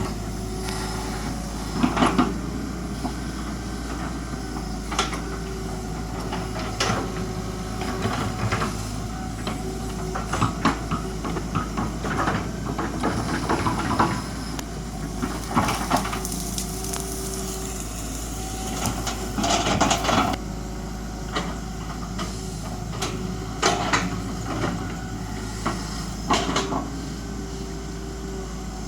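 Hydraulic excavator working: its diesel engine runs steadily under load while the machine's metal parts clank and knock again and again, with a stretch of hiss in the middle.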